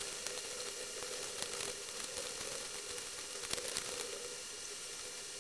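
Tangled metal jewelry chains being picked apart by hand: faint, scattered light clicks and clinks of small links over a steady background hiss.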